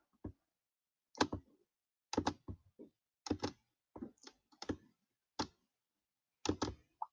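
Computer mouse clicking: about a dozen short, sharp clicks at irregular intervals, several in quick pairs, as on-screen blocks are picked up and dropped.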